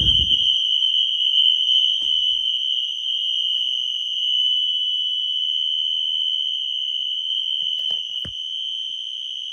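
Fire alarm horn sounding on continuous: one steady, very loud, high-pitched tone with no pulsing. A few faint clicks come near the end.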